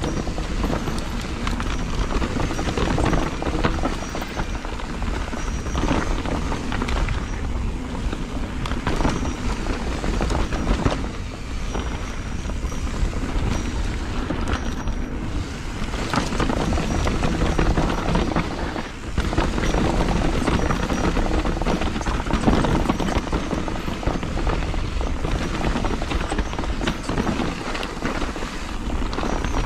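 Wind buffeting the microphone of a camera on a riding mountain bike, with the tyres and the full-suspension bike rattling and clattering continuously over a rough dirt trail. The sound dips briefly twice.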